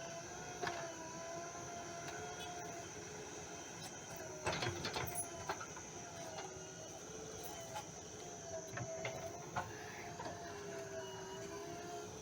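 JCB backhoe loader at work: the engine and hydraulics run with a pitch that rises and falls as the controls are worked. A burst of clattering knocks comes about four and a half seconds in.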